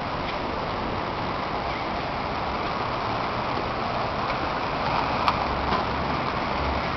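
Steady downtown street traffic noise, with a low engine rumble building in the second half and a single sharp click about five seconds in.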